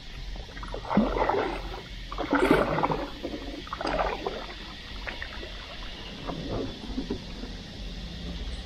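Stand-up paddleboard paddle strokes in the water: three louder swishing, splashing strokes in the first four seconds, then softer ones.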